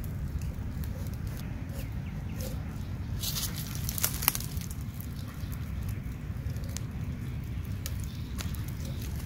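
Large kitchen knife cutting and scoring the skin of a raw whole chicken, soft cuts with scattered small clicks and two sharper clicks about four seconds in, over a steady low rumble.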